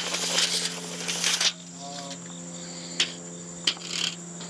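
Tape measure and camera-strap handling while deck boards are measured: a rustling clatter for about a second and a half, then two sharp clicks a little over half a second apart. A steady high insect trill runs underneath.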